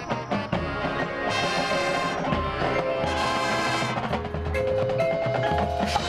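Marching band playing its field show: held band chords with the front ensemble's marimbas and other mallet percussion, and a few sharp percussion strikes just after the start.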